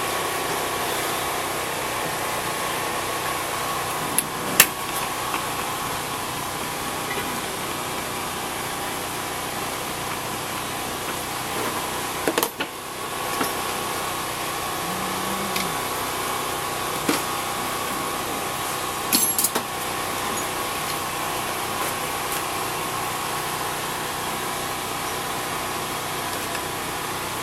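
Steady mechanical hum, engine-like, with a few sharp metallic clicks and knocks from tools on a bicycle scattered through it.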